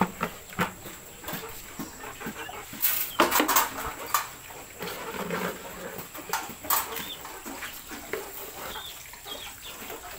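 Piglets in a farrowing pen calling in short, irregular grunts and squeals, mixed with scattered knocks, loudest about three seconds in.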